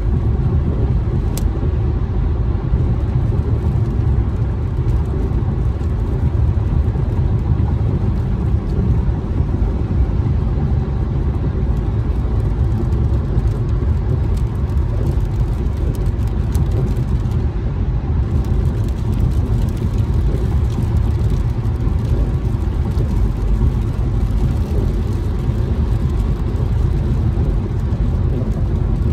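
Steady low rumble inside a car driving on a wet freeway in the rain: tyre and road noise with the engine underneath. A single sharp click comes about a second and a half in, and faint light ticks of rain on the windshield run through the second half.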